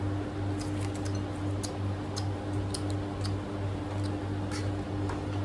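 Electric fan running with a steady low hum, under scattered faint clicks of someone chewing.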